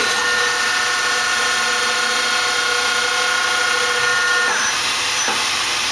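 Hanwha Hanex 25 CNC Swiss lathe's main spindle running under a program: a steady whine of several tones over a high hiss. About four and a half seconds in, the whine drops in pitch and fades away while the hiss carries on.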